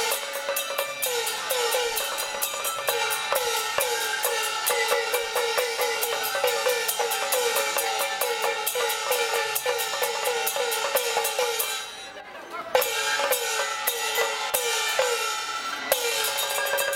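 Traditional Chinese gong-and-cymbal street band playing fast and loud: rapid cymbal clashes and gong strokes whose pitch bends downward, several a second. The playing drops off briefly about twelve seconds in, then resumes, with a held wind note near the end.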